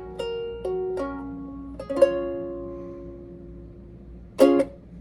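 Rebel Alchemist Jr. ukulele played in a sound sample: a few plucked chords, then a fuller chord at about two seconds that rings and slowly fades. A short chord near the end is cut off quickly.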